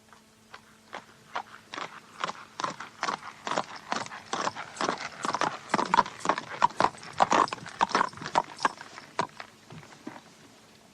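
Horse's hooves clip-clopping on hard ground, the footfalls growing louder to a peak in the middle and then fading away, as a horse approaches and passes by. A faint steady hum and hiss lie underneath.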